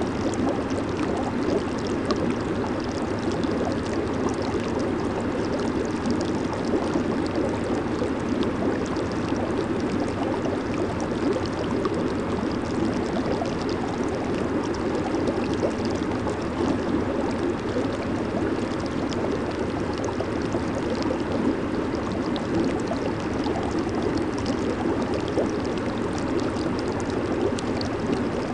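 Hot tub's jets and air bubbles churning the water, a steady bubbling and gurgling rush with fine crackling pops throughout.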